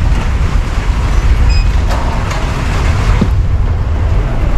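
Heavy rain pouring down on the screened patio's roof: a loud, steady rush with a strong low rumble underneath.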